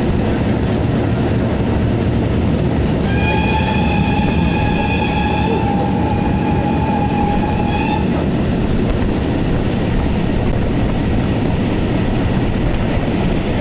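Steam-hauled train running, a steady loud rumble of wheels on rails heard from an open window just behind the locomotive. About three seconds in, the steam locomotive's whistle sounds one long, steady note lasting about five seconds.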